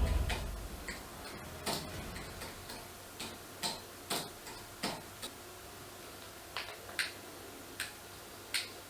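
A series of about fourteen short, sharp clicks at uneven intervals, as made in a Foley recording, with a gap of about a second a little past the middle.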